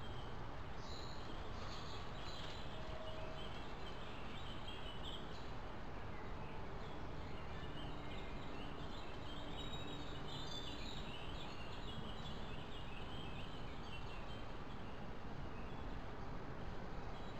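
Steady hiss from a trail camera's microphone, with woodland birds calling and singing throughout.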